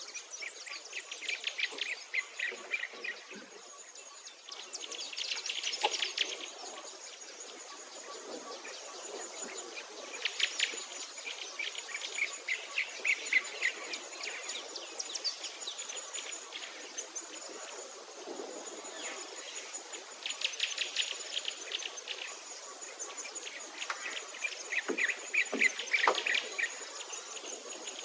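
Outdoor garden ambience: small birds chirp in quick bursts every few seconds over a steady high insect drone. A thin high note repeats about once a second.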